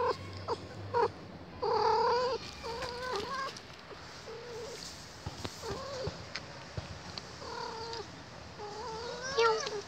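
A cat meowing repeatedly: a run of short meows in the first few seconds, fainter calls after, and a rising meow near the end.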